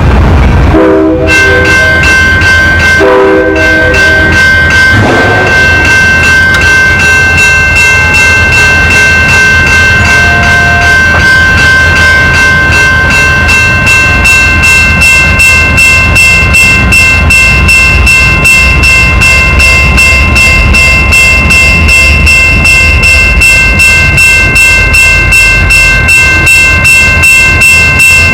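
Train horn sounding two short blasts, then the train rolling past with steady high-pitched ringing tones and rhythmic wheel clicks that speed up toward the end.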